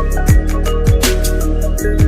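Background electronic music with a steady beat: deep bass hits that slide down in pitch, crisp hi-hat ticks and held synth tones.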